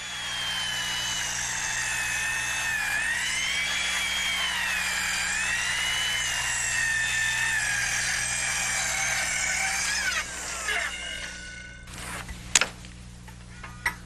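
Large circular saw with a wide shoe cutting the birdsmouth seat cut across a whole stack of rafters in one pass. Its high whine dips in pitch and recovers as the blade loads in the wood, then winds down about ten seconds in. A sharp knock follows near the end.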